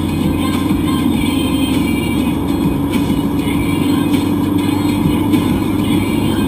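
Steady engine hum and road noise inside the cabin of a moving car.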